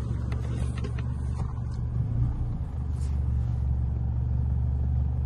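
Steady low drone of a Holden Colorado RC ute's engine and tyres, heard inside the cab while it drives along a rutted dirt track, with a few light knocks in the first few seconds.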